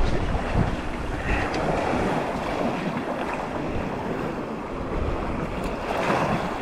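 Wind buffeting the microphone over the wash of shallow surf at the shoreline. The low wind rumble is heavy for about the first second and a half, then eases to a steadier hiss of wind and water.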